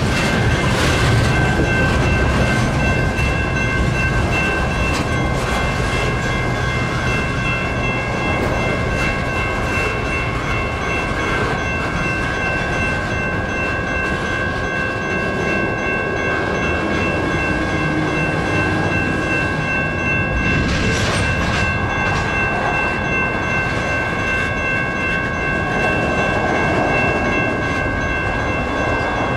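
Railroad crossing warning bells ringing steadily while the tail end of a freight train, a string of covered hopper cars, rolls through the crossing and rumbles away.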